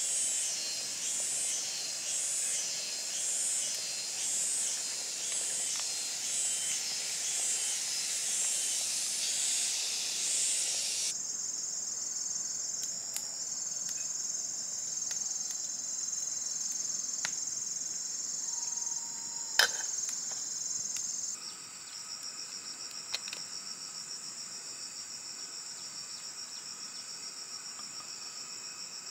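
Insects chirring: first a high hiss that swells and fades about once a second, then, after an abrupt change, steady high-pitched cricket trills. A single sharp click about two-thirds of the way through.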